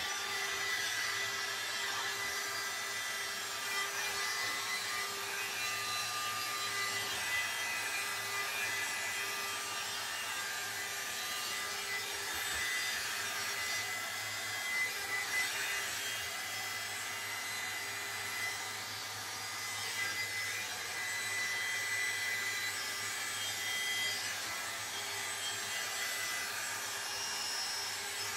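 Hot Tools hot airbrush running: its small fan blows a steady rush of air with a thin, steady whine.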